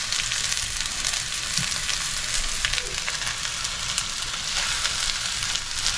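Tuna burger patties sizzling in olive oil in a pan at medium-high heat: a steady frying hiss with faint scattered crackles. The pan is hot enough to sear.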